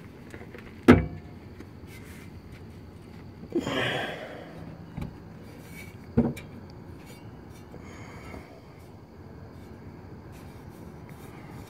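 Car muffler being grabbed and pushed by hand, clunking: a sharp knock about a second in, a brief scraping rustle around four seconds, and another knock past six seconds. The muffler was hit and pushed forward out of place when the lowered car bottomed out.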